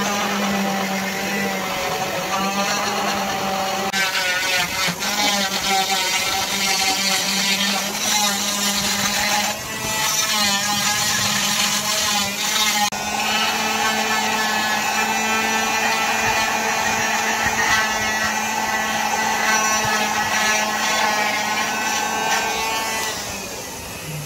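Electric cast saw running as it cuts through a fibreglass leg cast, a steady motor whine whose pitch wavers as the blade is pressed into the cast. It stops just before the end.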